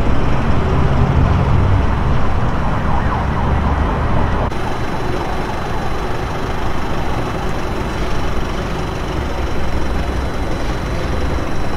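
Steady road-vehicle and traffic noise with a low rumble, changing abruptly about four and a half seconds in.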